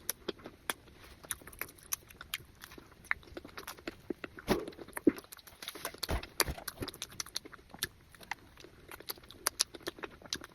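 Close-up chewing and wet mouth sounds of someone eating avocado and egg: a string of irregular small clicks and smacks, with a few louder bites or mouthfuls near the middle.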